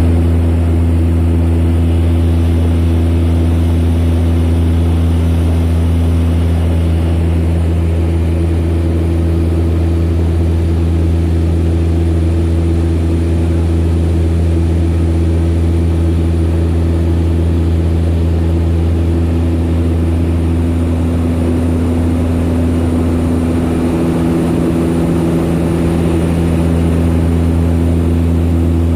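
Steady drone of a propeller aircraft's engines, a low even hum with steady overtones that holds at the same pitch throughout.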